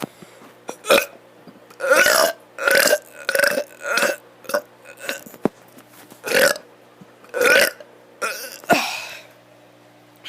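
A kid burping repeatedly: about eight short burps, each separate and with a voice-like pitch.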